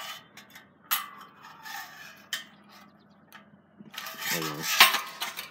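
Gas cap coming off a John Deere 110's fuel tank and the filler neck being probed: metal scraping and rubbing with a few sharp clicks, and a loud knock near the end.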